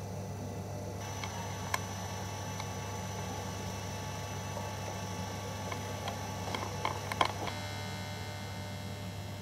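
A steady low electrical hum, with a few faint sharp clicks: one early and a small cluster about seven seconds in.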